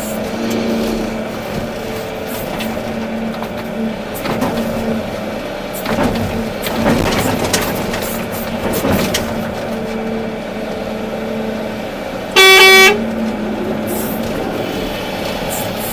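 Volvo EC380D excavator's diesel engine running steadily, with knocking and rattling for a few seconds near the middle. About three-quarters of the way through, a horn sounds once, briefly and loudly.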